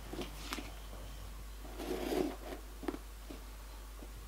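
Bootlace being pulled through the metal eyelets and hooks of leather hiking boots: a few short swishes of lace rubbing through the hardware, the loudest about two seconds in, with a small click near three seconds.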